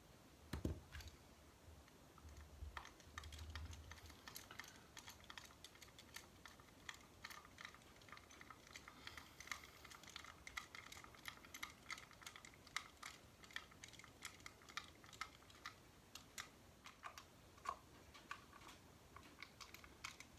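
Faint, irregular clicking and tapping of small plastic RC kit parts being handled and fitted together, with a low handling bump near the start.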